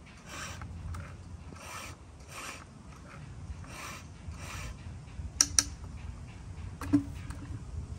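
Rhythmic rasping or rubbing strokes, about one every two-thirds of a second, fading after about five seconds, followed by two quick sharp clicks and a third click a second later.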